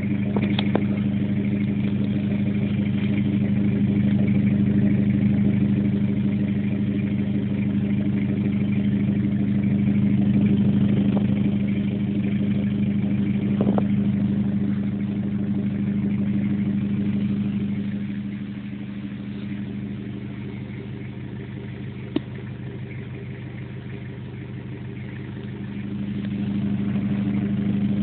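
Toyota Hilux diesel engine idling through an aftermarket exhaust soon after a cold-morning start, a steady low exhaust note. It gets quieter about two-thirds of the way through and louder again near the end.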